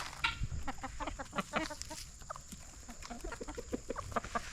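Chickens clucking in many short, quick calls.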